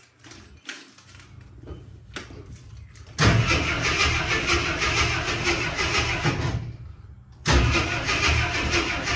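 Old International Harvester truck engine cranking on its starter in two tries: the first begins about three seconds in and lasts about three seconds, and the second starts about a second later. The engine turns over without yet running.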